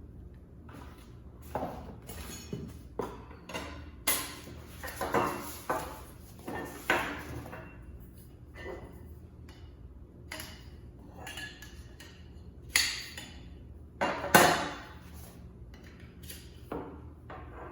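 Stainless steel towel rack parts being unpacked and handled, clinking and knocking against each other at irregular moments, with rustling of packaging between; the loudest knock comes about 14 seconds in.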